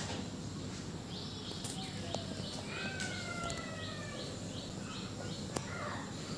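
Animal chirping: a run of short high chirps repeated about three times a second for several seconds, with two falling whistle-like calls in the middle, over a steady background hiss.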